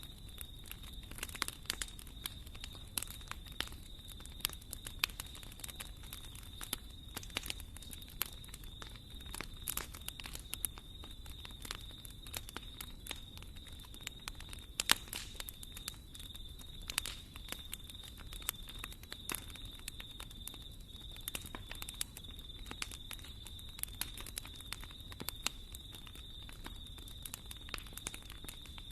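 Wood fire in a fireplace crackling, with irregular sharp pops and snaps over a steady low rumble of the burning logs. A faint steady high-pitched tone runs underneath.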